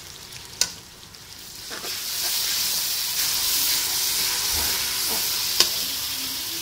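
Onions and ginger-garlic paste frying in hot oil in an aluminium pressure cooker. The sizzle swells into a loud, steady hiss about two seconds in. A metal slotted spoon clicks sharply against the pan twice.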